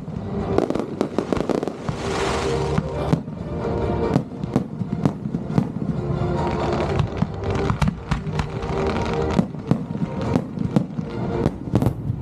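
Aerial firework shells launching and bursting in quick, irregular succession: many sharp bangs and crackles, with music playing underneath.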